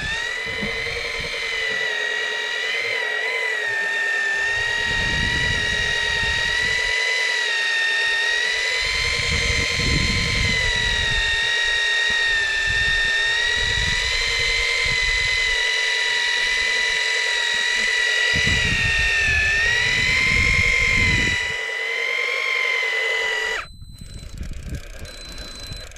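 Electric fishing reel's motor whining steadily as it winds in line, its pitch wavering a little under load, then cutting off abruptly near the end.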